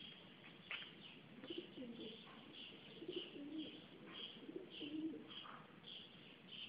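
Faint pigeon cooing: low, wavering calls through the middle, along with short high chirps that repeat about twice a second.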